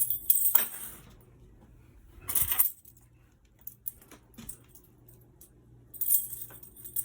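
A bunch of metal keys dropped, clattering as they land, then jangling twice more as they are picked up and handled: once about two and a half seconds in and again near the end.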